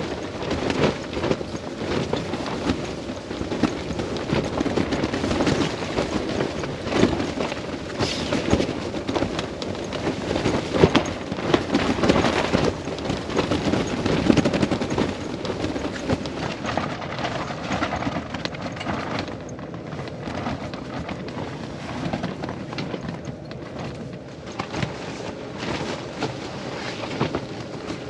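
Rooftop tent fabric flapping and snapping hard in strong wind, a dense run of rapid cracks that eases off somewhat in the second half.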